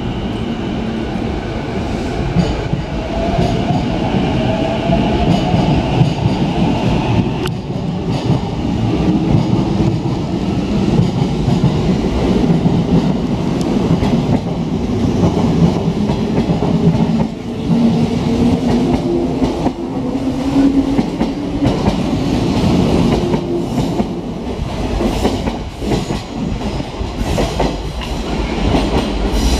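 A 485-series electric train pulling out and passing close by, its running note rising in pitch as it gathers speed. Its wheels knock over rail joints and points, most clearly in the last few seconds as the rear cars go by.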